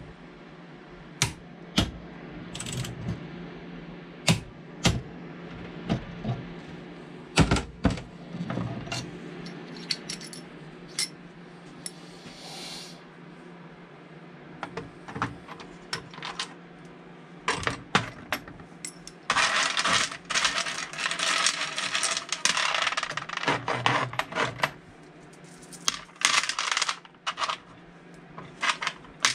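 Small metal tools and parts clinking and clattering on a workbench: scattered sharp clinks, then a dense stretch of rattling about two-thirds of the way in, over a steady low hum.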